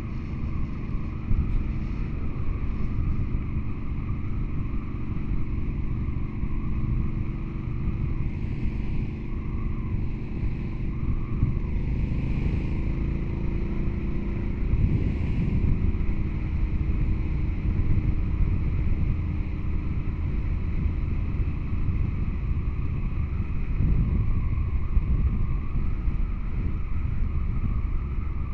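Engine running steadily under heavy wind rush on a helmet-mounted microphone, with its pitch shifting slowly partway through.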